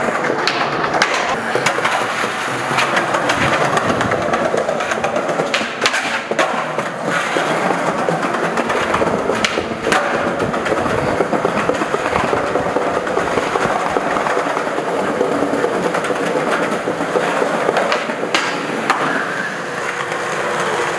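Skateboard wheels rolling over concrete, a steady rumble broken by a few sharp clacks.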